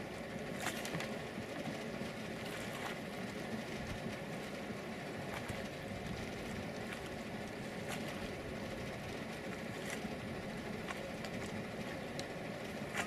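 Motor of an outrigger boat running steadily underway, a constant engine hum under the rush of water, with occasional short clicks.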